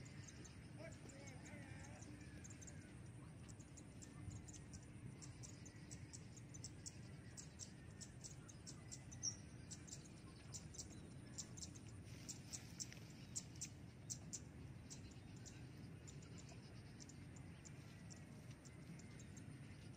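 Near silence: faint open-air ambience with a low steady rumble and scattered faint high ticks, thickest in the middle of the stretch.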